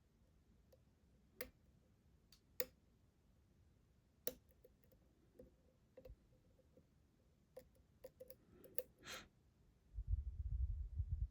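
Scattered small metallic clicks and ticks of a lock pick working the pins inside a lock cylinder, more frequent in a cluster around eight to nine seconds in. Near the end, a louder low rumble of handling noise as the lock and tools are moved.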